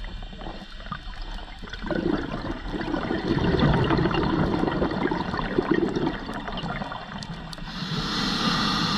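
Scuba diver breathing through a regulator. A long, low bubbling exhale runs from about two seconds in until about six and a half seconds, and a hissing inhale comes near the end.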